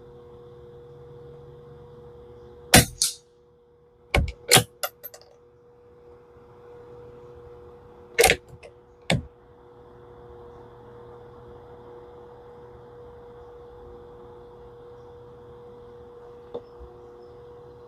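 Two shots from a suppressed Tikka T1x .22LR bolt-action rifle, about five and a half seconds apart, each a sharp crack with a quick second report. Between them comes a rapid run of four mechanical clicks as the bolt is cycled.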